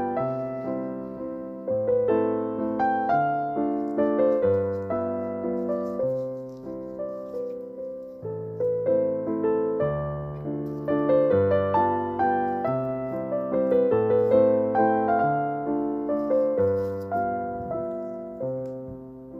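Background piano music: a gentle melody of struck, fading notes over low bass notes, softening near the end.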